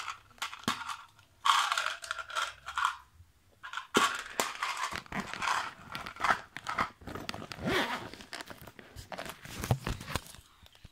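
Handling noise: rustling and crinkling in irregular bursts with scattered clicks and scrapes, as a handbag is handled close to the microphone.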